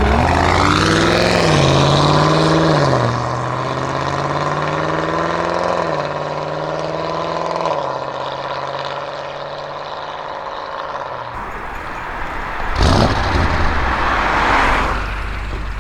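Twin-turbo V8 of an ABT-tuned Audi RS6 Avant C7 with a Milltek exhaust accelerating hard, its pitch climbing and dropping at three upshifts, then sinking as it pulls away. Near the end a louder rushing noise.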